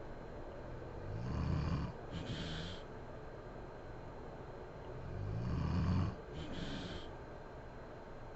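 A sleeping woman snoring in a slow, regular rhythm. There are two breath cycles about four seconds apart, each a low snore followed by a short hissing breath.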